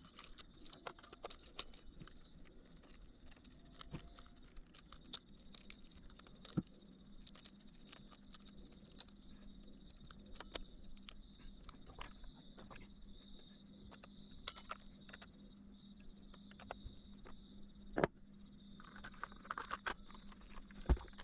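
Scattered light clicks and taps of hard parts being handled, over a faint steady hum.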